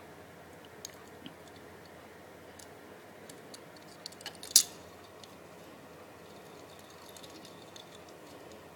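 Scattered light clicks and taps from handling a small die-cast toy car and its packaging, with one sharp, louder click about halfway through, over a steady low hiss.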